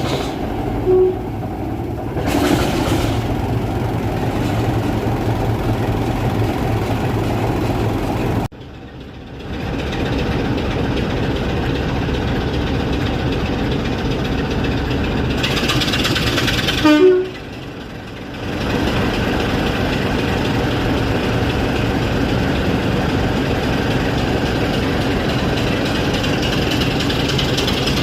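Train locomotive running steadily, with a short toot about a second in and another about seventeen seconds in. The sound drops away abruptly twice, around nine seconds in and again just after the second toot.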